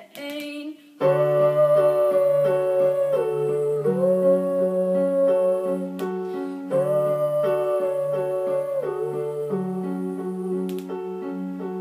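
Electronic keyboard playing an instrumental break: held chords over a steady repeating pattern of short notes. It comes in about a second in, after the last sung note fades.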